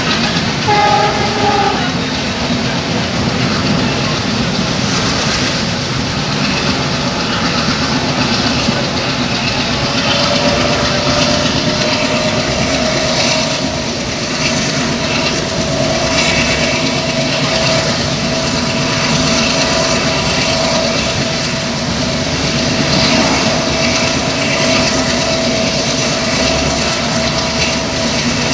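Running noise of a diesel-hauled passenger train from inside a coach at an open window: a loud, steady rumble of wheels on rail with rushing air. About a second in there is a brief horn. From about ten seconds in a thin whine rises slightly in pitch and then holds steady.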